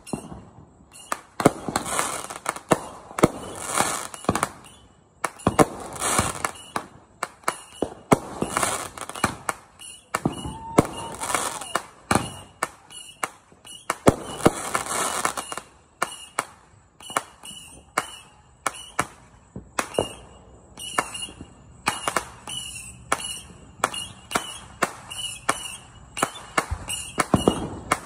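Backyard fireworks going off again and again: sharp bangs and crackling bursts every second or two, with hissing stretches between them and a short whistle about ten seconds in.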